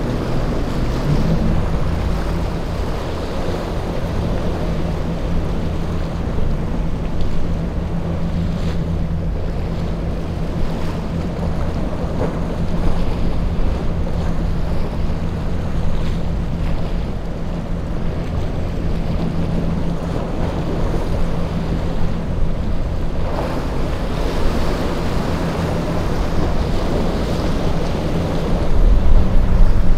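Choppy surf and boat wakes rushing in an inlet, with wind buffeting the microphone and a steady low drone of outboard engines underneath.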